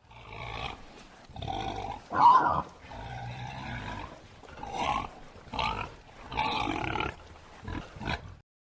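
Bornean bearded pig grunting: a series of about eight rough grunts, the loudest about two seconds in, stopping shortly before the end.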